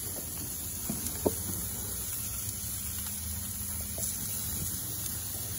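Bone-in ribeye steaks sizzling on a hot gas grill's grates: a steady hiss with a few faint pops.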